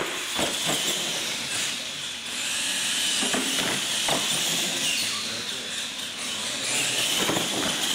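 R/C monster trucks racing on a concrete floor: a steady high whine and hiss from their motors and tyres, with a few sharp knocks from landings and bumps.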